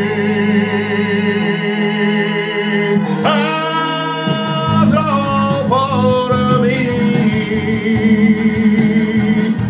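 A man sings long held notes with a wide vibrato into a handheld microphone over backing music, a new held note starting about three seconds in, then shorter phrases.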